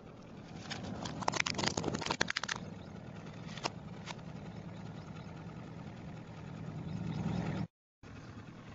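Hard plastic toys cracking and snapping under a slowly rolling car tyre: a rapid cluster of cracks lasting about two seconds, then a couple of single clicks. The car's engine runs low and steady underneath, growing louder near the end before the sound cuts out briefly.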